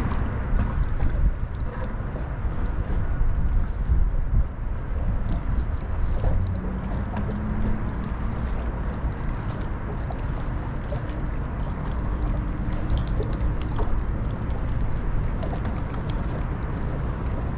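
Wind and water noise around a small open fishing skiff: a steady low rumble with water lapping and a few faint scattered ticks.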